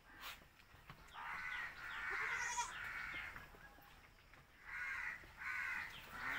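Harsh animal calls: a run of calls for a couple of seconds, then two short calls near the end.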